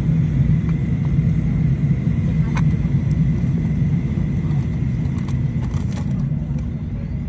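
Steady low rumble of a Boeing 737-800's cabin on the ground, with a faint steady high whine and a few light clicks.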